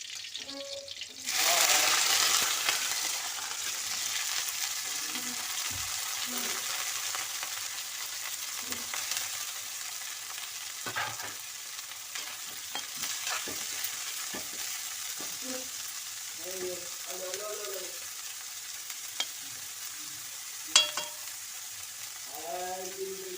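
Chopped mixed vegetables tipped into hot oil in a kadai: a loud sizzle bursts up about a second in and settles into a steady frying hiss as they are stirred, with a few sharp knocks and clicks against the pan.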